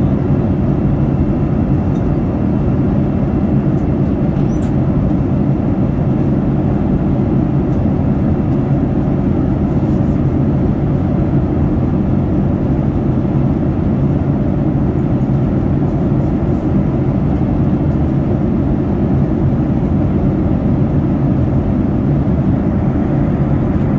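Steady cabin noise of a Boeing 787 Dreamliner at cruise speed: a constant low rush of engine and airflow noise.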